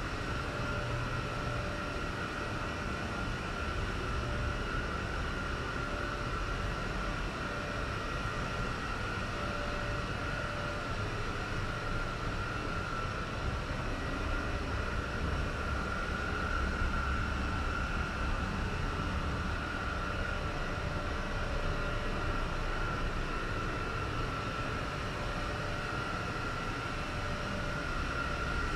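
Steady mechanical drone with a constant high-pitched whine and a low rumble underneath, unchanging throughout.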